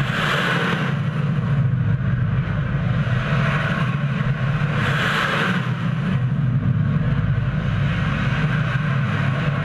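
Roar of missiles launching from a warship's deck: a steady, loud, low rushing that swells twice, just after the start and again about five seconds in.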